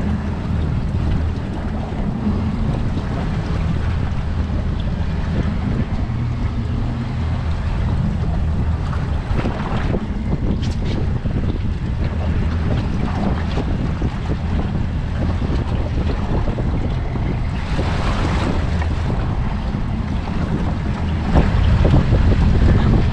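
Wind buffeting the microphone over the wash of waves against a small offshore fishing boat, a steady low rumble with a few brief louder splashes. It grows louder near the end.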